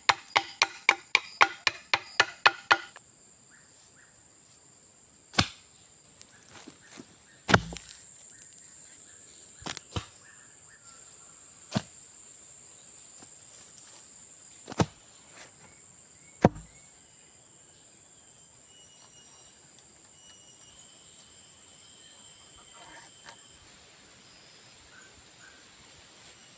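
Quick, even chopping strikes on wood, about four a second, that stop about three seconds in, followed by about eight single knocks spread over the next dozen seconds. A steady high insect drone runs underneath.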